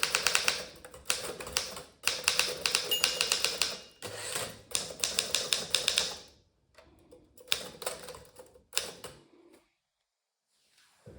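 German-made Remington Senior Writer (Torpedo 17a) manual typewriter being typed on fast: rapid keystrokes in quick runs, thinning to a few scattered strokes after about six seconds and stopping a little after nine.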